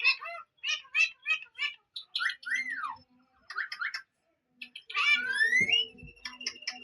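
Parrot calls: bursts of quick, repeated chirps with whistled glides, one falling in pitch about two and a half seconds in and one rising about five seconds in.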